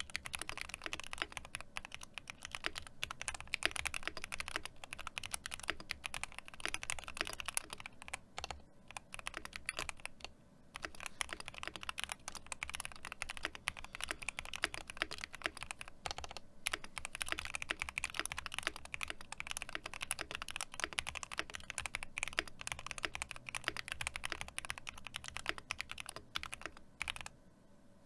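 Fast touch-typing on a mechanical keyboard fitted with GMK White on Black ABS double-shot keycaps: a rapid, continuous clatter of keystrokes with a few brief pauses, stopping shortly before the end.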